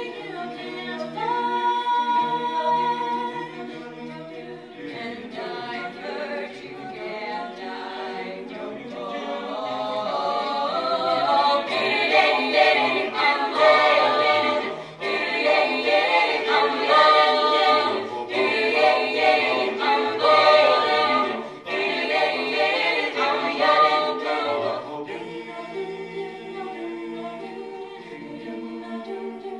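Mixed-voice a cappella choir of boys and girls singing in close harmony into handheld microphones. The singing swells louder from about ten seconds in and falls back to a softer passage near the end.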